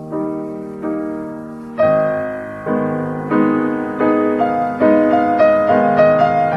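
Background piano music: chords struck in a steady pulse, each note fading after it is struck, growing fuller and louder about two seconds in.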